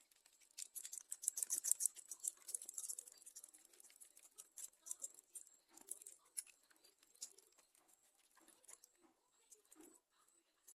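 Rapid, irregular light clicking and scratching from kitchen food preparation, dense at first and thinning out towards the end.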